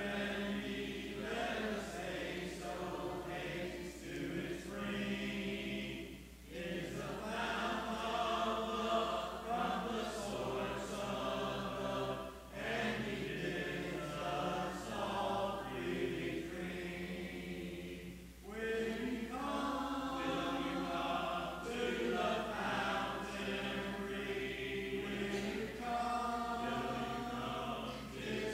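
Congregation singing a hymn a cappella, with short pauses between lines about every six seconds.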